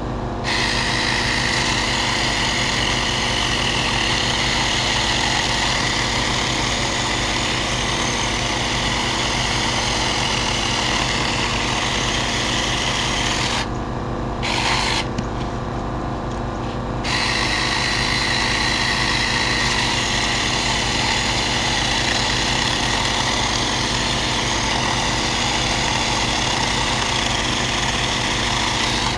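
Cordless mini chainsaw running and cutting wood, its whine stopping briefly twice about halfway through before it starts up again. A steady engine hum runs underneath throughout.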